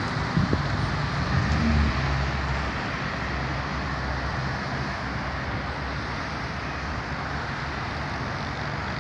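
Road traffic noise from cars passing on a nearby road: a steady wash of tyre and engine noise, with a heavier low rumble from a passing vehicle in the first two or three seconds that then eases to a steady level.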